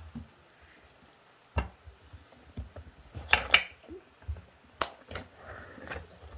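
Kitchen knife clicking and tapping on a glass cutting board as green bell peppers are cut and cored. There are a few separate sharp clicks, with a quick cluster of them about halfway through.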